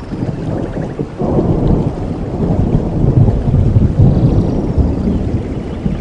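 Rolling thunder over steady rain, the low rumble swelling about a second in and staying loud.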